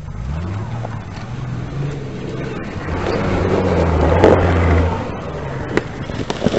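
Off-road 4x4's engine pulling hard under load as it climbs a muddy slope; the note rises in the first second, is loudest about three to five seconds in, then eases off. A few sharp snaps come near the end.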